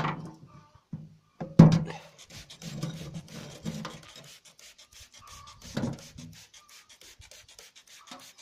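Hand trigger sprayer squirting petrol onto an oily finned air-cooled cylinder liner: repeated squeezes with a fine patter and hiss of spray on the fins, and the liner being turned and rubbed against the table, with two heavier knocks.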